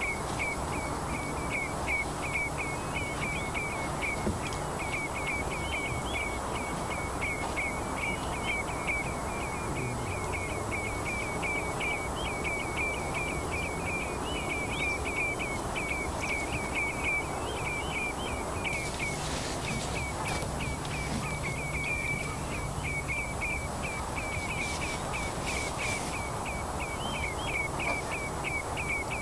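Outdoor ambience: a short, high chirp repeating about three times a second, with a brief pause about two-thirds of the way through, over steady background noise and a low hum.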